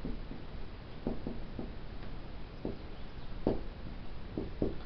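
Dry-erase marker writing a word on a whiteboard: a scatter of short, faint taps and scratches as the felt tip strikes and drags across the board.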